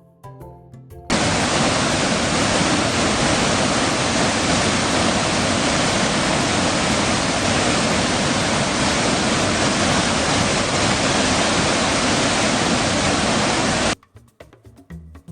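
Loud, steady rushing noise, even and without any tone, starting abruptly about a second in and cutting off suddenly near the end. Background music plays briefly before and after it.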